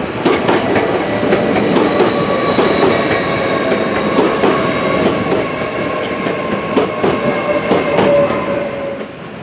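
A rake of British Rail Mark 1 passenger coaches rolls past at low speed, its wheels clacking over the rail joints over a rumble, with a steady high whine. The sound drops away near the end as the last coach clears.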